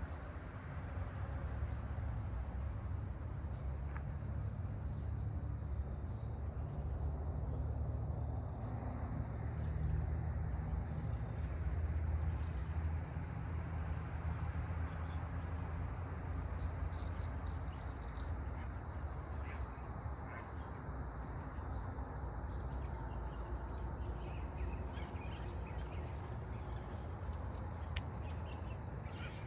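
Insects, crickets by their sound, chirring in one steady high-pitched trill that never breaks, over a constant low rumble.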